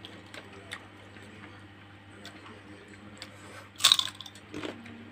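Eating sounds: scattered small clicks of green mussel shells handled by hand, and about four seconds in one loud crunch as a crispy fried cracker is bitten, followed by a few softer chewing crackles.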